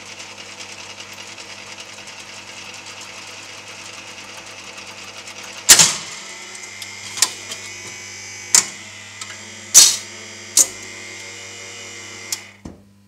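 Wurlitzer Atlanta jukebox record-changing mechanism: its motor runs steadily with a low hum, then from about six seconds in comes a series of loud clacks and clicks as a single is moved from the upright magazine onto the turntable and the tone arm is set on it. The mechanism stops shortly before the end.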